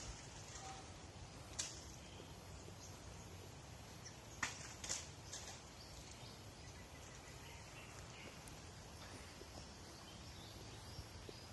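Quiet outdoor background with a few faint clicks or rustles, the loudest about a second and a half in and a pair about four and a half to five seconds in.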